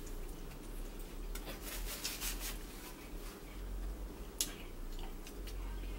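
Eating at a table: a few soft rustles and rubs of hands, napkin and food, and one sharp click about four and a half seconds in, over a low steady hum.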